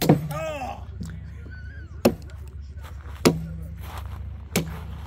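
Hatchet splitting a small block of wood stood on a wooden picnic table: four sharp chops one to two seconds apart, each followed by a short low ring from the table.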